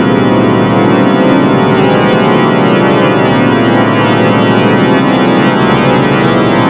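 Loud, steady organ-like music: a dense chord of many held tones sounding together without a break.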